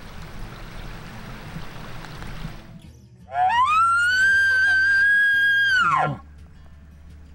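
A hunter's elk bugle call blown through a bugle tube, imitating a bull elk. One long call rises to a high, held whistle for about two and a half seconds, then drops sharply away. It comes after a few seconds of steady hiss.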